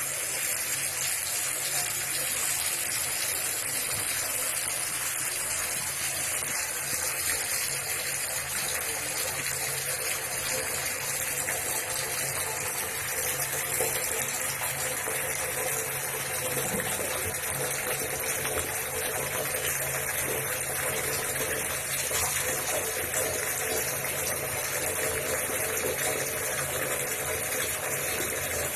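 Tap water running in a steady stream into a bathtub and flowing down the drain.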